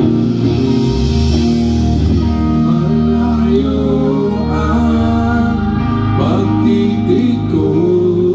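Live rock band playing loud through a PA: electric guitars holding sustained chords under a singing voice.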